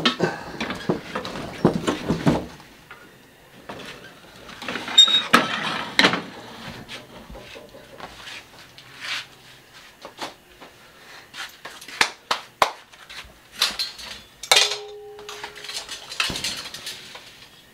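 Metal cookware clattering and knocking: a wok and pots handled, bumped together and set down on a gas stove, with scattered sharp clinks. A short squeaky tone sounds about three-quarters of the way through.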